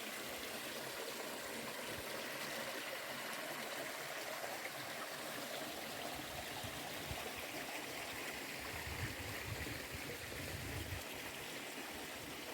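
A stream of running water flowing steadily over stones, with a brief low rumble about nine seconds in.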